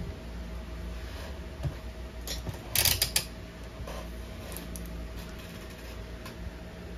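A brief clatter of small tools being handled on a workbench, a quick run of clicks and rattles about two to three seconds in, over a steady electrical hum.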